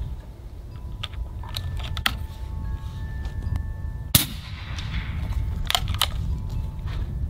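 A single shot from an Umarex Gauntlet 30 PCP air rifle about four seconds in, a sharp crack with a short echo after it, firing a 78-grain Griffin boat-tail slug. Wind rumbles on the microphone, with a few lighter clicks before and after the shot.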